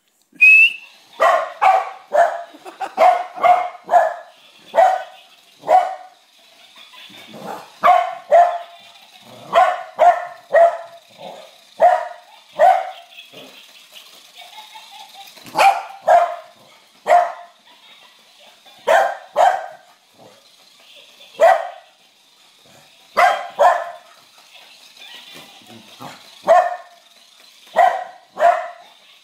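A dog barking over and over, sharp loud barks often in quick pairs or threes with short pauses between.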